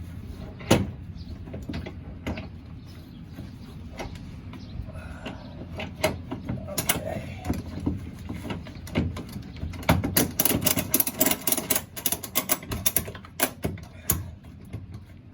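Ratchet tie-down straps being cranked tight on a vehicle: metal clicks and clunks, a sharp loud click about a second in, and a fast run of ratchet clicks in the later part.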